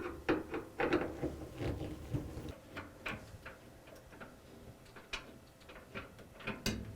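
Phillips screwdriver backing screws out of a dryer's sheet-metal front panel: a run of light, irregular clicks and ticks, busiest in the first couple of seconds and then more spaced out.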